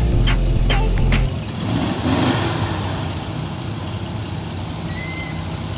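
Background music stops about a second in. After that, an open two-seater sports car's engine runs at low speed as the car drives slowly past.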